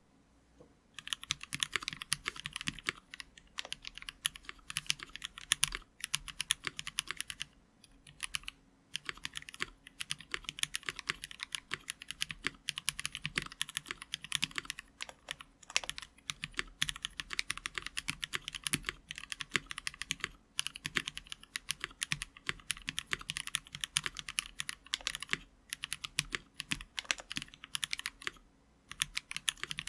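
Steady typing on a Blade60 60% mechanical keyboard built with lubed NovelKeys Cream linear switches on a brass plate and GMK keycaps: a rapid run of keystroke clacks. It starts about a second in and breaks off briefly twice.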